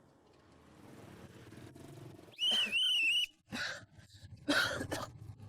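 A man coughing harshly a few times, a sick cough from a cold and flu, starting about three and a half seconds in. Just before it comes a brief, loud, wavering high whistle-like tone, and a low rumble runs underneath.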